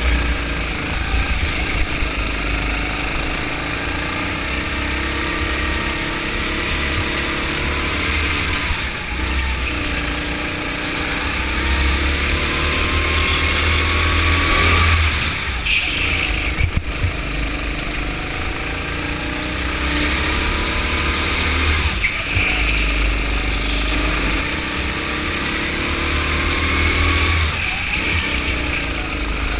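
Onboard sound of a go-kart's engine under way: its pitch climbs steadily on the throttle and drops back sharply about four times as it comes off, over a heavy low rumble.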